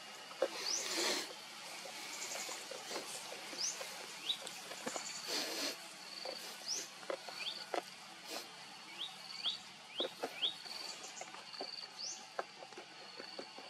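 Outdoor birdsong: many short rising chirps and a repeated high trill, with scattered small clicks. There are brief rustling noises about a second in and again about midway.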